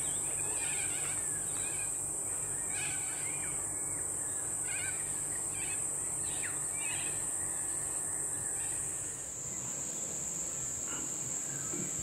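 Insects droning in a steady, high-pitched chorus, the pitch dropping slightly about nine seconds in. Short bird chirps come and go over the first nine seconds.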